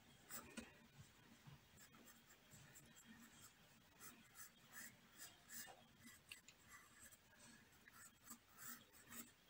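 Faint scratching of a pencil on paper in many short, quick strokes.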